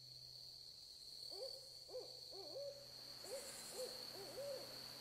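An owl hooting: two rhythmic phrases of about four hoots each, the last hoot of each phrase drawn out. A steady high-pitched whine runs underneath.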